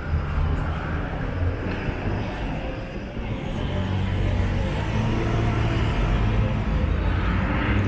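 City street traffic: cars and buses passing in a steady low rumble.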